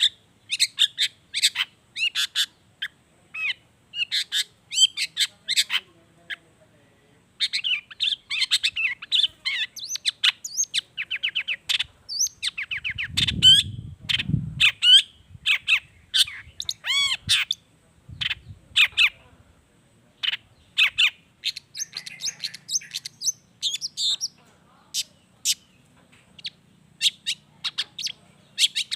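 Long-tailed shrike (cendet) singing a fast, varied song of sharp chirps, short trills and gliding whistles, packed with notes copied from other wild birds. A brief low rumble sounds about halfway through.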